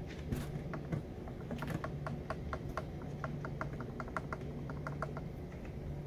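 Boosted Board Stealth electric drive motor clicking as it is turned by hand: a run of sharp, regular clicks, about four or five a second. It is the nasty clicking that the owner traced not to the bearings but to a faulty motor.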